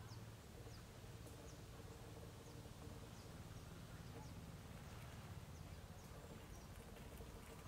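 Near silence: faint outdoor background with a steady low hum and scattered faint high chirps.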